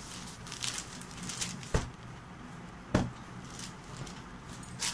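Cotton dress fabric rustling and swishing as hands unfold it and smooth it flat on a table, with two sharp thumps, one a little under two seconds in and one about three seconds in.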